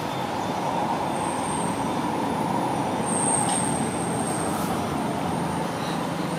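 Steady outdoor background rumble, with a faint thin high whine from about a second in to about four and a half seconds.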